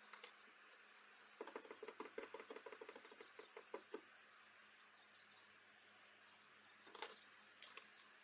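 Faint, quick run of light clicks and taps lasting about two and a half seconds, with a few more near the end.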